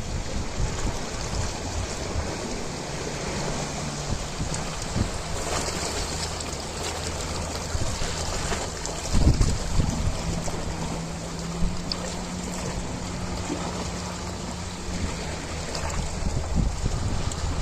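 Ocean waves washing, with wind buffeting the microphone in gusts, strongest about halfway through, and a faint steady low hum underneath.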